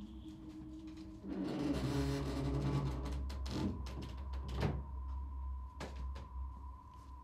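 A heavy wooden box dragged scraping across a floor, starting about a second in, followed by a few knocks and one louder thump past the middle. A low rumble and a faint steady high tone run underneath.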